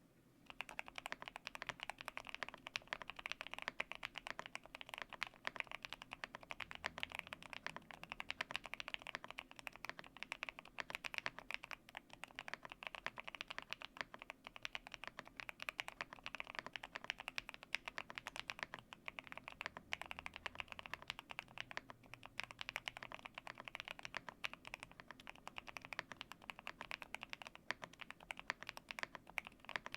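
Fast, continuous typing on a GMK87 custom mechanical keyboard with Akko Matcha Green Pro switches. The switches and stabilizers are lubed, and the case is tape-modded and filled with foam.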